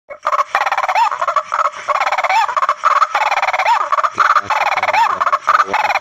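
White-breasted waterhen (terwok) calls: a rapid, continuous run of croaking calls with a short rising-falling note recurring about every second and a bit, the call used to lure the birds in.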